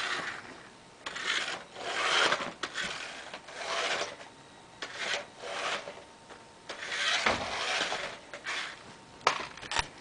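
Irregular bursts of rubbing and scuffing right at the microphone, each lasting about half a second to a second, with a few sharp clicks near the end.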